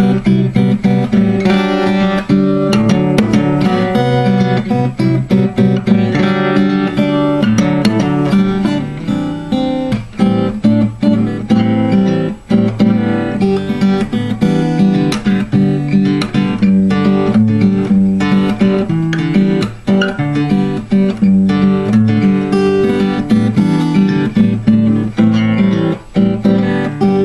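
Acoustic guitar fingerpicked in double drop D tuning, playing a continuous run of plucked notes over low bass notes.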